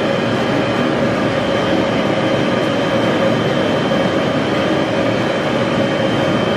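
Pet grooming blow dryer running steadily: a loud, even rush of air with a constant whine in it.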